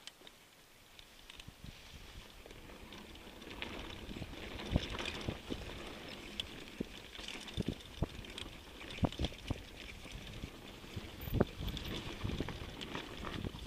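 Mountain bike rolling down a dirt trail: tyre and wind noise building up over the first few seconds, with sharp knocks and rattles from the bike over bumps, the loudest a little after eleven seconds in.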